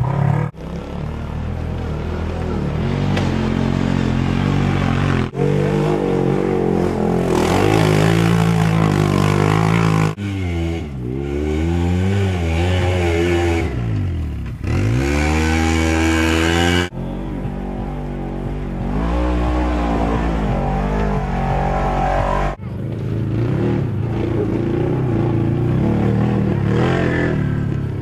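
Side-by-side off-road vehicle engines running and revving as they climb a rocky dirt trail, the sound changing abruptly about every five seconds. In the middle stretch the engine pitch rises and falls repeatedly as the throttle is worked.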